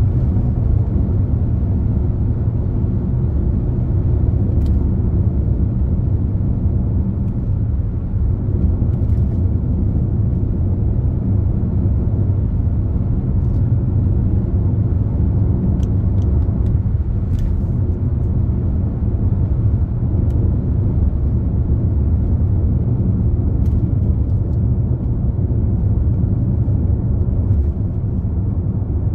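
Car driving along a highway: a steady low rumble of tyres and engine, with a few faint ticks.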